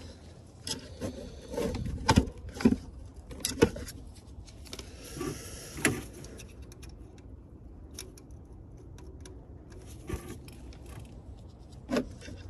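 Hand tools and driver bits clinking, knocking and scraping against metal and plastic while a fastener is worked at in a car's engine bay: scattered sharp clicks and knocks, busiest in the first few seconds and once more near the end, with a stretch of rubbing about five seconds in.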